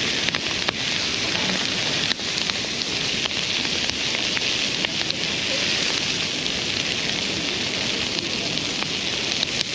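Wood bonfire burning hard: a steady hiss with sharp crackles and pops scattered throughout.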